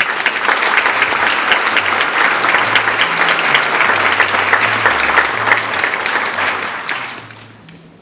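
Audience applauding: dense clapping that fades away about seven seconds in.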